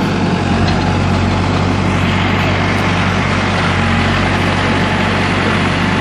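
Hidromek backhoe loader's diesel engine running steadily close by, a continuous low hum with no knocks or bangs.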